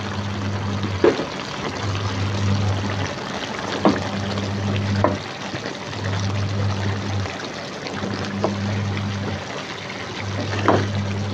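Duck pieces simmering and bubbling in their liquid in a stone-coated wok, with a few sharp knocks and scrapes of a spatula against the pan. A low hum comes and goes every second or two.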